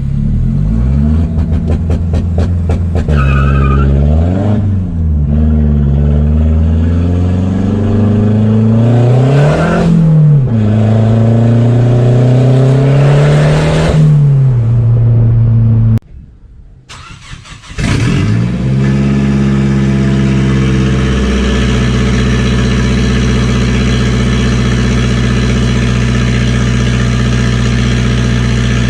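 A car engine revs several times, its pitch climbing and falling back. After a brief break, an engine fires up, flares and settles into a steady idle.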